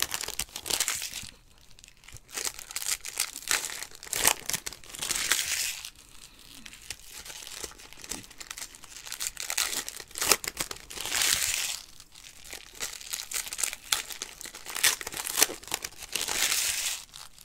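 Foil wrappers of Panini Certified football card packs crinkling and tearing as the packs are ripped open, with the cards being pulled out and handled. The sound comes in irregular bursts with short pauses between them.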